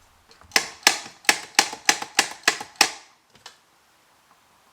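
Eight sharp clacks in quick succession, about three a second, from working the Mazzer Mini coffee grinder to clear stale grounds out of its chute.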